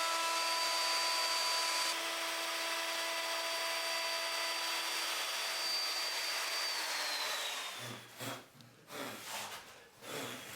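Trend plunge router running steadily, cutting flutes along an oak board. About seven seconds in it is switched off and its whine falls as the motor winds down, followed by a few light knocks.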